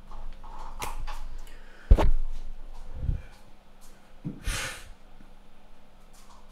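A few sudden knocks and thumps in a small room, the loudest a heavy thump about two seconds in, followed by a short breathy hiss about four and a half seconds in.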